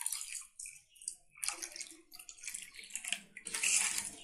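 Strained lemon juice poured from a steel bowl into a steel pot of nannari syrup: an uneven splashing trickle of liquid that gets louder near the end as the bowl is tipped further.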